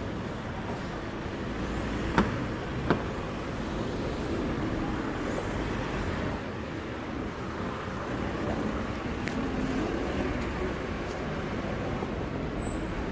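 Street traffic noise: a steady hum of cars on a city road, with two sharp knocks a little over two seconds in, under a second apart.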